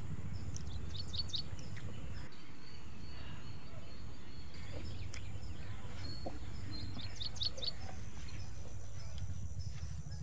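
A bird chirping in two quick runs, about a second in and again around seven seconds, over a steady low rumble of outdoor background noise.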